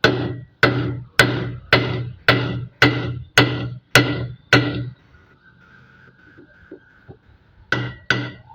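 A steady run of sharp knocks, about two a second, each ringing briefly with a pitched tone; they stop for a few seconds midway and start again near the end.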